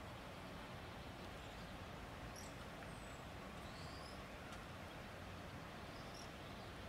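Quiet outdoor ambience: a faint steady hiss, with a few faint, high, short bird chirps scattered through it.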